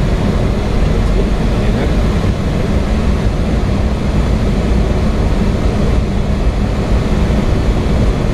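Boeing 737-800 flight-deck noise on approach: a steady, loud rush of air with a low hum underneath.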